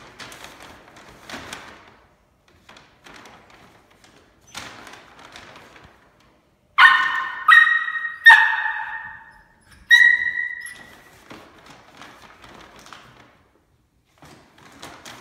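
Brown paper bag crinkling and rustling as a puppy noses and bites at it, with four sharp, high yaps from the puppy a little after the middle, the last one after a short pause.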